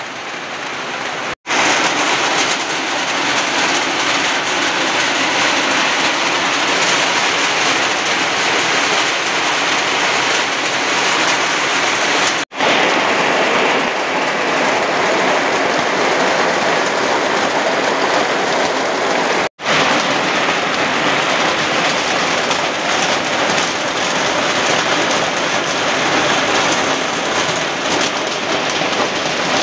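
Heavy rain falling steadily, an even hiss with no pitch. It cuts out for an instant three times, at edits.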